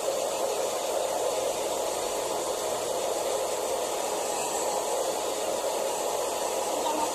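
Hand-held blow dryer running steadily, blowing warm air onto a Persian cat's fur to dry it after a bath.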